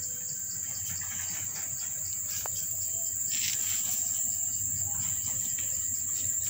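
Background music with a steady high-pitched tone and light, regular ticking; no other sound stands out.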